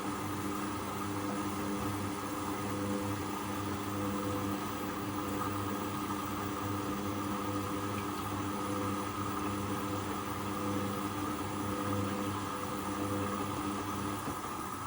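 Hoover Custom Vision washing machine running during its first rinse: a steady electrical hum with a slightly pulsing low throb.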